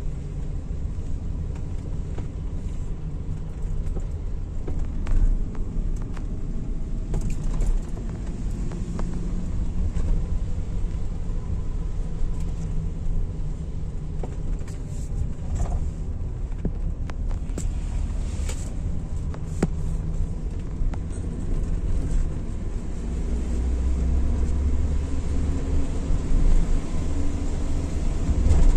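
Steady low rumble of road and engine noise inside a moving car's cabin, with a few faint clicks and rattles.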